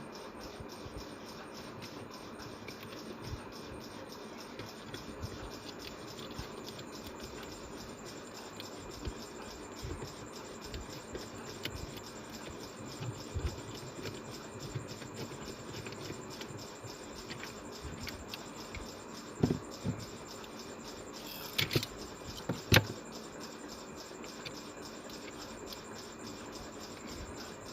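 Faint scratching and small clicks of hands fitting wires to the switch and socket terminals of an extension board, with a few sharper taps about two-thirds of the way through, over a steady background hiss.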